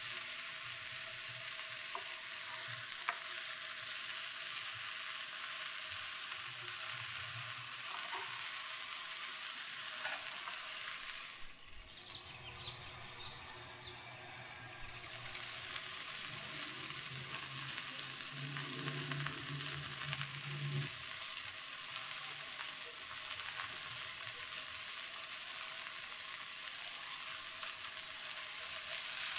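Ground-beef burger patties sizzling steadily in a hot frying pan. The sizzle drops away for a few seconds midway, then comes back.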